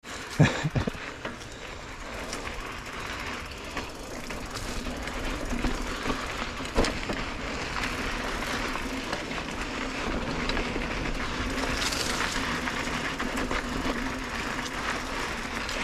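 Mountain bike rolling along a dirt trail: tyres running over the dirt with steady rattling and clicking from the bike, and a few sharp knocks in the first second.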